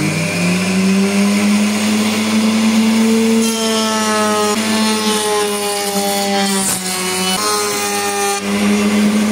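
Router motor of a benchtop router table running at its lowest speed, about 11,500 rpm, reaching full speed just after it starts. From about three and a half seconds in to about eight and a half seconds it cuts a profile along a pine board, knot included, with an added whine that slides slightly lower under the load, then it returns to free running.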